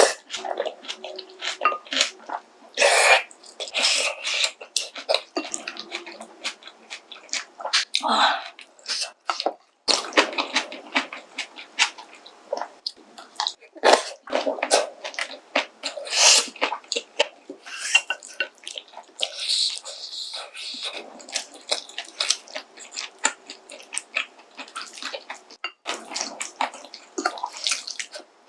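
Close-miked eating of soupy pork kimchi stew with noodles: wet slurps and chewing, broken by many sharp clicks.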